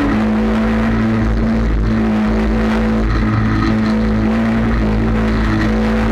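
Dirt-track race car's engine running hard at nearly steady revs, heard from inside the cockpit, with small dips in pitch, over tyre and wind noise.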